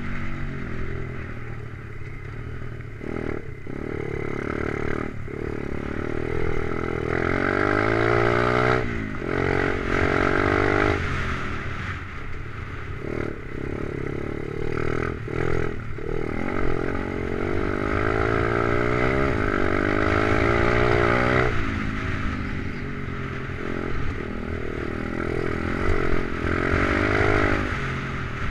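Stomp pit bike's 125cc Lifan single-cylinder four-stroke engine, newly fitted and being run in, revving up and down under riding load, the pitch climbing and falling over and over with brief dips as the throttle is closed between pulls.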